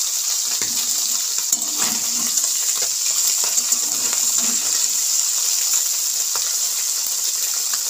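Small mourola fish frying in hot mustard oil in an aluminium kadai, a steady high sizzle, with a steel spatula scraping and clinking against the pan now and then as the fish are turned.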